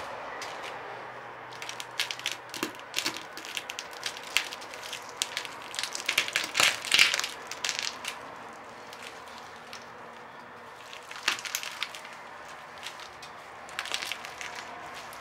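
Eggshell of a hard-boiled dyed party egg cracking and crunching under the sole of a Dunlop Thermo+ rubber boot. A run of crackles builds to the loudest crunch about seven seconds in, followed by a few scattered crackles near eleven and fourteen seconds.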